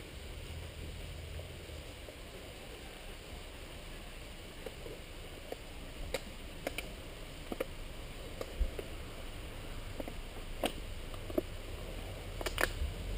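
Steady low wind rumble on the microphone, with scattered light clicks and knocks from camping gear and bags being handled, thickening into a quick cluster near the end.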